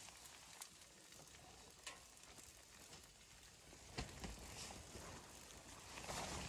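Faint crackle and sizzle from a small wood-burning tent stove, its fire burning with the door open and food grilling in a wire basket on top, with scattered small clicks and a sharper knock about four seconds in.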